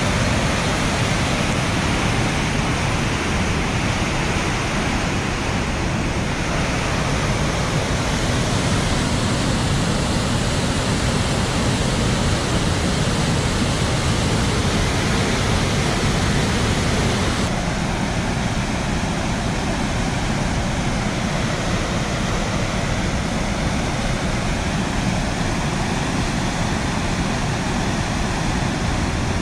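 Floodwater rushing over rocks in a swollen river, a steady loud roar of water; the sound shifts slightly in tone about seventeen seconds in.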